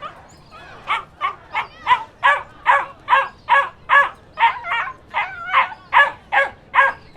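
A dog barking over and over in short, high-pitched barks, about two to three a second, starting about a second in.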